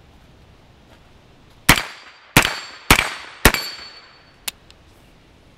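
A Freedom Ordnance FX-9 9mm carbine fires four shots about half a second apart, with a steel target ringing after the hits. About a second later there is a single small dry click: the trigger falls on a round that fails to fire, a failure to ignite with no mark on the primer.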